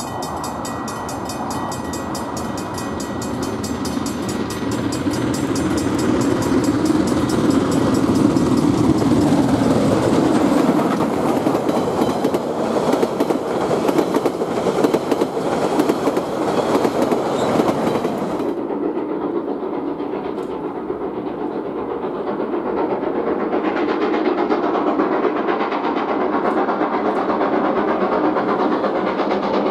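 Steam locomotive Jb 1236 and its train pass close by at speed, growing louder. The wheels clatter rapidly over the rails as the trailing diesel and carriages go by. About two-thirds of the way through, the sound cuts to the train working in the distance, duller and quieter.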